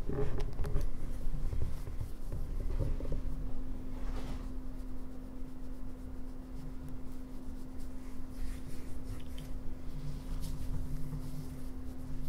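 Soft rustling and rubbing of fabric and fur as kittens shift about on a person's lap and are stroked by hand, with a few light clicks in the first second, over a steady low hum.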